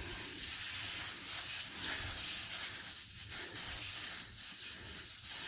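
Air hissing steadily out of a Honda Gold Wing GL1800's front tire through its valve stem as the tire is deflated.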